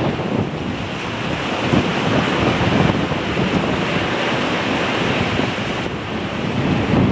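Strong wind blowing across the microphone, a steady rushing noise that swells and eases in gusts.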